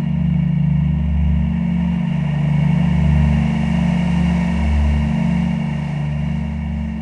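Unfiltered Audio LION software synthesizer playing a deep, sustained drone with a hiss-like layer above it; the low end swells and pulses slowly, and the sound eases down near the end.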